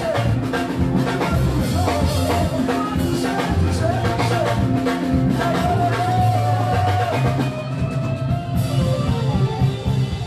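Music with a steady drum beat, low bass notes and a singing voice.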